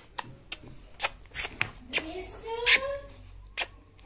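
Rottweiler puppy giving a single rising whine about two seconds in, the whimper of a dog in pain after an injection, amid many short sharp clicks and scratches.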